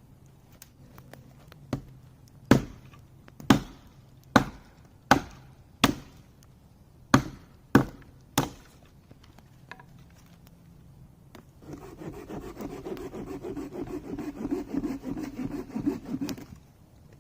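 Firewood being chopped: about nine sharp, separate strikes, roughly one a second. Near the end comes a rasping scrape of wood that lasts about five seconds and stops suddenly.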